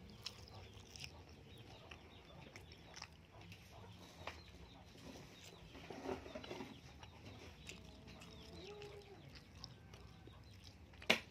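Faint chicken clucks now and then, with scattered soft clicks and taps and one sharper click near the end.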